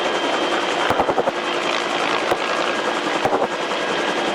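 Fire department rescue helicopter running on the ground with its rotors turning: a steady turbine whine and rotor noise, with occasional sharp clicks.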